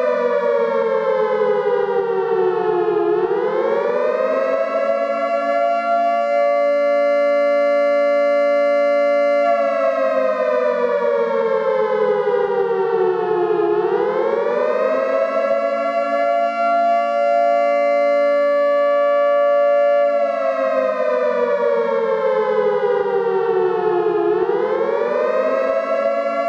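Air raid siren wailing in repeated cycles of about ten seconds: its pitch rises over a second or so, holds steady for about five seconds, then falls slowly over about four seconds before rising again. Two close tones sound together throughout.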